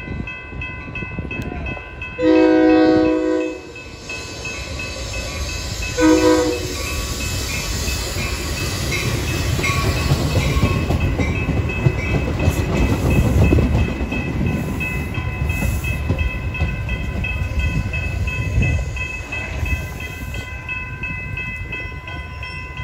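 Metra commuter train's locomotive horn sounds one long blast and, a few seconds later, a short one as the train approaches. This is followed by the low rumble and wheel clatter of its stainless-steel bilevel coaches passing close by.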